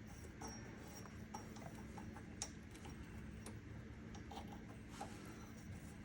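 Faint, scattered light clicks and taps of hands working small parts and lines on a small engine, over a low steady hum.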